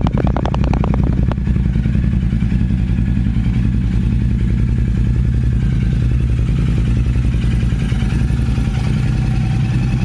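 Royal Enfield Continental GT 650's 648 cc parallel-twin idling steadily through AEW 101 aftermarket exhausts, already warm from an earlier cold start.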